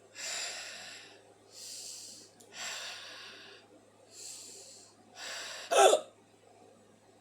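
A person with hiccups breathing noisily in and out, about six breaths, then one short, loud hiccup about six seconds in.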